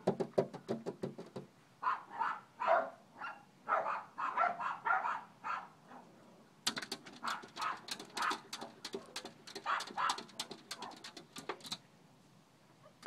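Excited dogs barking and yipping in quick bursts behind a glass door. From about seven seconds in, a rapid run of sharp clicks and taps joins the calls.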